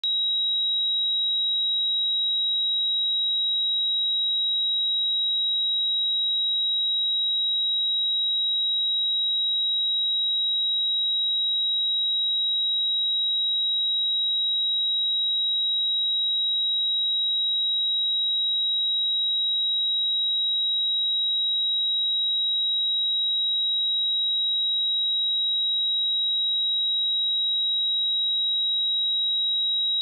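A single pure sine-wave test tone at 3836 Hz, a steady high-pitched beep held at one pitch and one level throughout.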